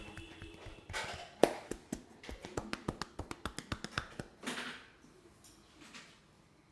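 A barber's hands tapping and slapping quickly over a customer's head and shoulders in a head massage: a run of sharp claps with one much louder snap about a second and a half in, and brushing rubs between. The tapping stops a little past the middle.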